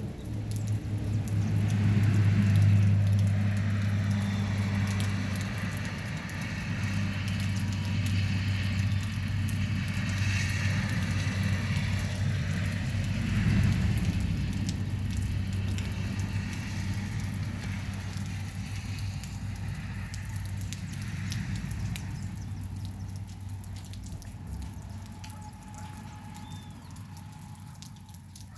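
Rain falling, a dense patter of drops, over a steady low hum; it swells a couple of times and slowly fades near the end.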